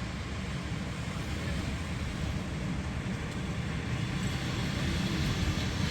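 Steady rumble of a Kia Sorento SUV on the move: road and engine noise, even throughout.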